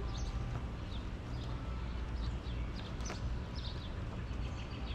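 Small birds chirping repeatedly over a steady low outdoor rumble.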